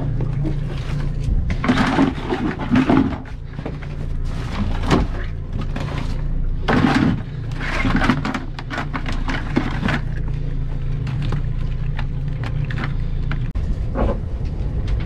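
A boat's outboard motor idling with a steady low hum, under a series of knocks and scrapes as a live spider crab is handled on the deck, dropped into a plastic bucket, and the rope crab pots are worked.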